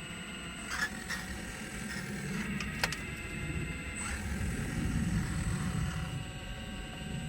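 Radio-controlled scale Volvo 360L excavator working: a steady electric whine from its motors, swelling louder around the middle, with a few sharp mechanical clicks, the loudest a little under three seconds in.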